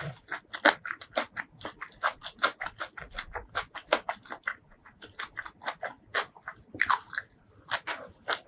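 Close-miked mouth sounds of a person chewing a mouthful of rice with curry: a quick run of wet clicks and smacks, several a second.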